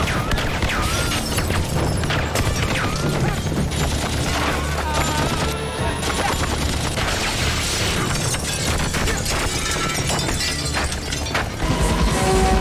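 Film soundtrack: dramatic music mixed with gunfire bursts and explosion booms, growing louder shortly before the end.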